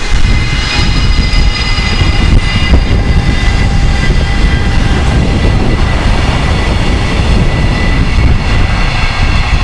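A freight train drawn by an electric locomotive approaching, with heavy wind buffeting the microphone as a loud, steady low rumble. From about half a second in, a cluster of steady high-pitched tones sounds above it.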